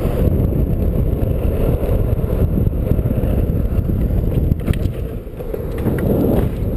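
Wind buffeting a helmet-mounted action camera's microphone at speed on a longboard, over the steady rumble of the wheels rolling on asphalt.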